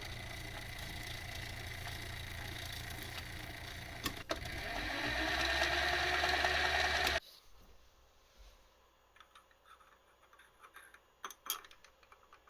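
An electric power-tool motor running steadily, growing louder about four and a half seconds in, then cutting off abruptly about seven seconds in. Scattered light clicks and taps follow.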